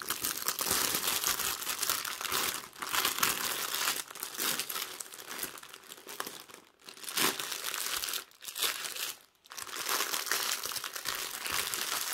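Clear plastic film over a diamond painting canvas being handled, crinkling almost continuously, with two brief pauses in the second half.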